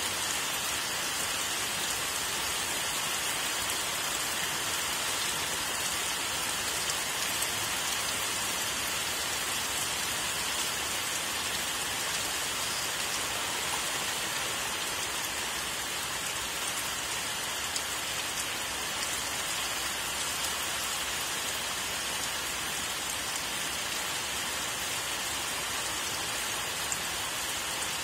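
Steady rain falling: an even hiss of drops that holds without a break.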